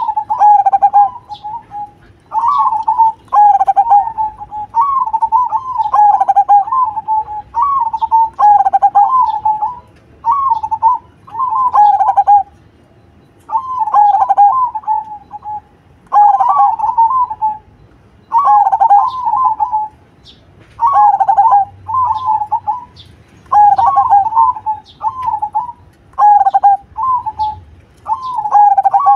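Zebra dove (perkutut) singing its cooing song: a phrase of several quick, rolling coo notes, repeated about a dozen times with short pauses between phrases.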